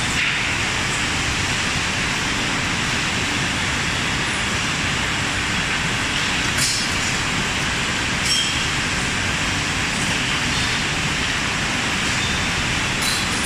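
Steady machinery din of a robot palletizing line, with two short, sharp hisses of compressed air, one about halfway through and one near the end.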